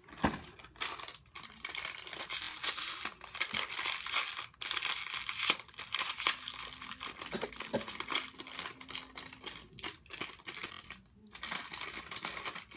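Close rustling and crinkling with many small irregular clicks.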